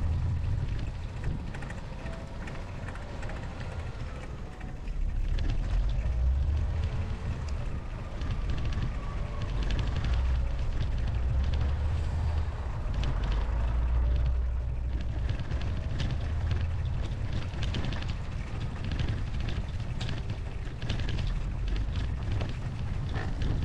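Wind rumbling on the microphone while riding a bike through a snowstorm, with faint crackling over it. The rumble eases off for a few seconds near the start, then comes back stronger.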